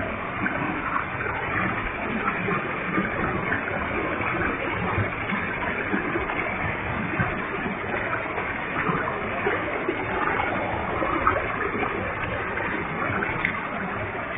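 Waterfall with a heavy flow of water: a steady rush of falling and splashing water that keeps an even level throughout.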